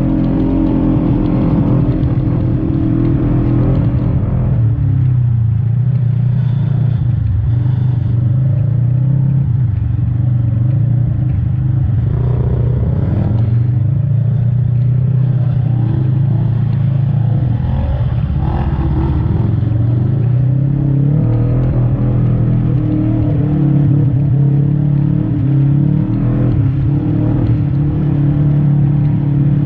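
Side-by-side UTV engine running hard over rough ground, its pitch dropping and rising as the throttle is let off and opened again, with some rattling.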